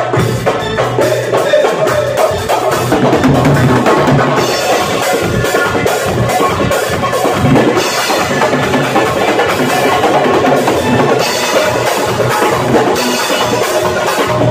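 Several doiras (Uzbek frame drums) and a drum kit playing a fast, dense rhythm together.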